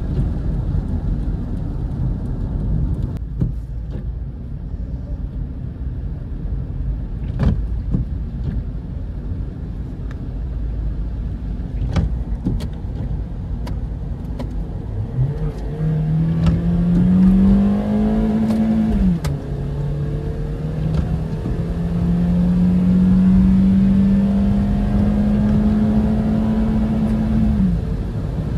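Inside the cabin of a Toyota Corolla GLI 1.6 automatic, its 1.6-litre four-cylinder engine under low road and tyre rumble on a wet road. About halfway through, the engine note climbs as the car accelerates, then drops sharply as the automatic gearbox shifts up. It climbs again slowly and falls away near the end.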